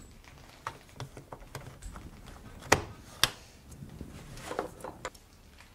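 Light handling noises: scattered soft clicks and taps, with two sharper clicks about half a second apart near the middle.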